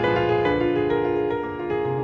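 Classical piano music, several notes sounding together and changing in quick succession.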